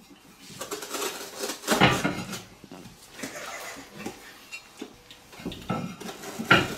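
Ceramic roof tiles being handled and set down, clinking and knocking against each other and the table in an irregular run of hard clatters.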